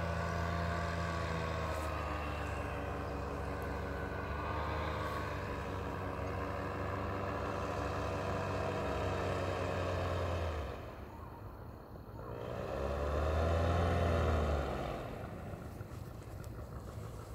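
Paramotor engine running during a landing approach: a steady drone with a wavering pitch, throttled back about ten seconds in, opened up briefly a few seconds later with the pitch rising and falling, then eased down to a low run near the end.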